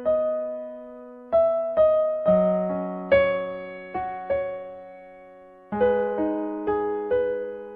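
Background music: a slow, gentle electric piano melody, single notes and chords struck and left to fade.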